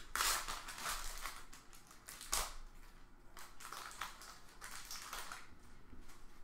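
Foil trading-card pack wrapper, a 2017-18 Panini Prizm Fast Break basketball pack, being torn open and crinkled by hand. It comes in uneven crackly rustles, with a sharp crinkle about two and a half seconds in.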